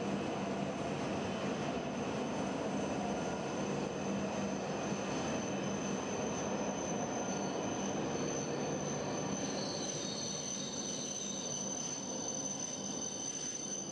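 E7 series Shinkansen train running past at low speed as it pulls in to stop, a steady rumble of wheels and running gear with a low hum that eases slightly after about ten seconds as the last car goes by. Insects keep up a thin, steady high-pitched buzz throughout.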